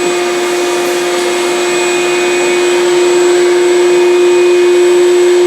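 A handheld power tool running steadily with a constant high whine, cutting into rusted sheet metal of a truck cab roof.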